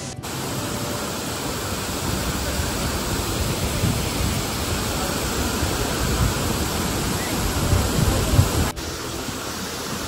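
Waterfall pouring down a stepped rock face: a steady, loud rush of falling water, broken for an instant by a cut near the end.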